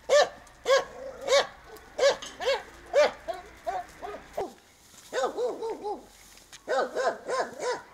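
A dog barking over and over, short pitched barks in quick runs.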